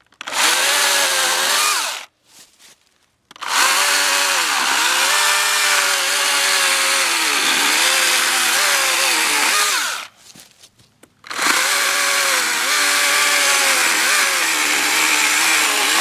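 Husqvarna 120i battery-powered chainsaw cutting wood in three runs, a short one and then two long ones, with brief stops between them. The motor's whine drops in pitch each time the chain bites into the cut and comes back up as it frees.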